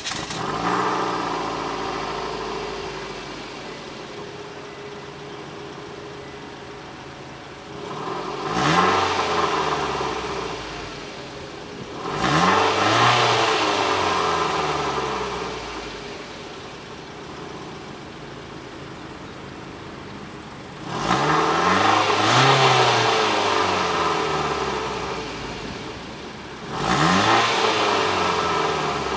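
Mitsubishi ASX's 1.8-litre MIVEC four-cylinder petrol engine heard at the tailpipe, settling to idle from a rev at the start, then revved four times, each rev rising quickly and sinking back to idle over a few seconds.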